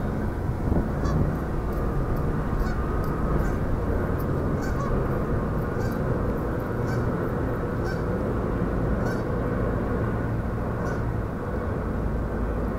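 Steady low rumble as a steel bascule drawbridge lowers, with a short high-pitched honk-like sound repeating about once a second over it.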